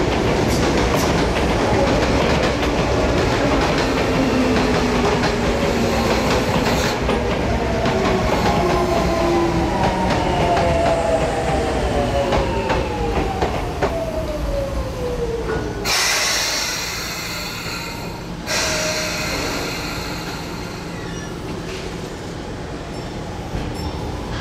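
Electric commuter train on the Sagami Railway main line running through the station with a steady rumble and wheel clatter, its motor whine falling steadily in pitch from about eight seconds in. A loud hiss lasting about two and a half seconds follows after the whine dies away.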